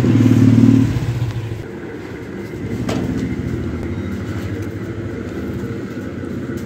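A motor engine running, loudest in the first second and then settling to a steady rumble, with a single sharp click about three seconds in.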